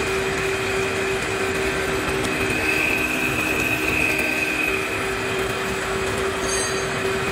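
Machine tool cutting metal: a steady whine under broad machining noise, with a high-pitched squeal that swells in the middle and fades again.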